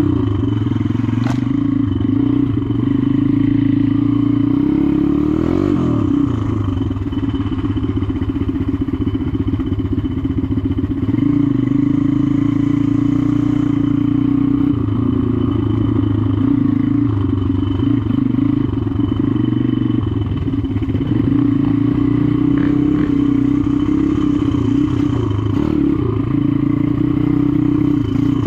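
Four-stroke dirt bike engine running while being ridden, its note rising and falling with the throttle, most clearly about five seconds in and again past the twenty-second mark.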